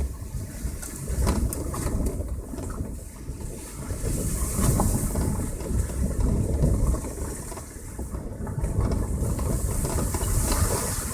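A passenger car driving: a low, uneven rumble of tyres and running gear, with scattered knocks and rattles.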